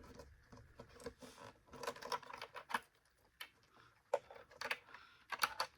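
Scattered light clicks and taps of plastic vacuum-cleaner parts being handled as the power switch is fitted back into its housing.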